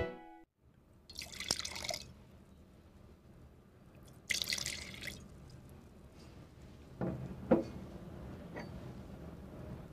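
Wine poured into glasses twice, each pour a high, hissing splash lasting about a second, then a sharp knock about seven and a half seconds in.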